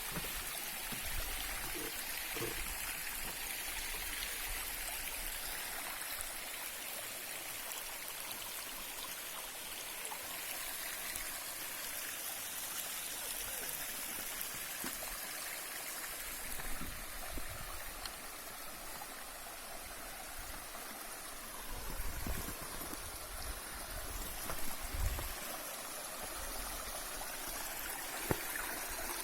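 Mountain stream rushing and splashing over rocks, a steady even hiss of water, with a few dull low bumps along the way.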